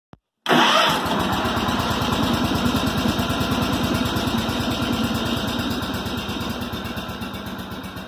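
A small engine running at a steady idle, with an even, rapid firing beat. It cuts in abruptly about half a second in and fades away over the last couple of seconds.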